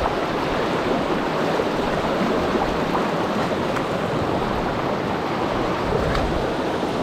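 Mountain river rushing steadily over its rocky bed.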